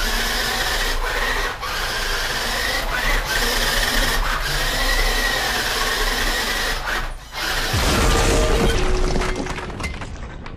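Electric motor and gears of a 1983 Radio Shack off-road RC buggy running on a 2-cell LiPo, a rasping whine whose pitch rises and falls as it drives on a hardwood floor. About three-quarters of the way through it gives way to a deep rumble with a few held tones that fades out.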